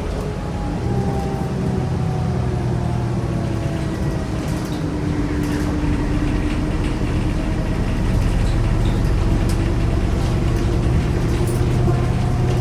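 New Flyer D40LF diesel city bus heard from inside while driving: a steady engine drone with whining drivetrain tones that slowly slide in pitch as the speed changes. This bus's transmission is described as bad.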